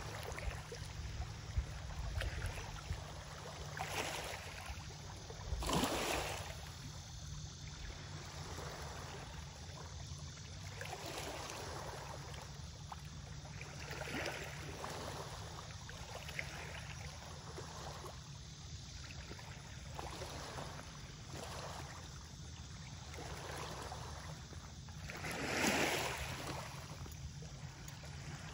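Small waves lapping on a rocky lakeshore, coming in soft swells every few seconds, the loudest near the end, over a steady low rumble.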